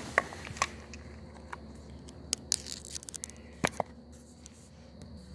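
Scattered sharp clicks and light scrapes of a string trimmer head and its line spool being handled and taken apart.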